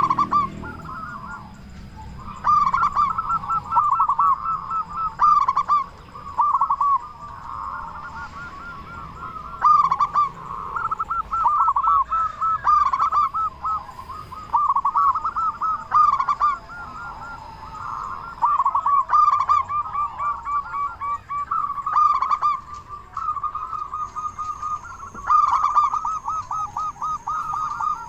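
Zebra doves (perkutut) cooing: runs of quick, repeated coo notes, each run a few seconds long, following one another throughout. This is a local perkutut in full, loud song, the kind played to spur other perkutut into calling.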